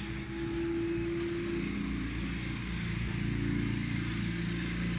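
A steady engine hum with a hiss over it, from a motor running nearby. A held tone sits on top for about the first second and a half.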